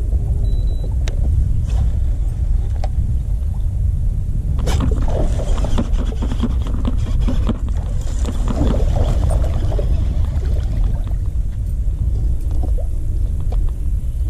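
Steady low rumble in the boat. From about five seconds in, a busy run of clicks, scrapes and splashing as a hooked bass is fought to the boat.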